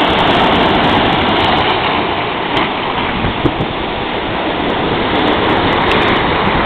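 Sea surf breaking and washing over shoreline rocks, a loud, steady rush of foaming water.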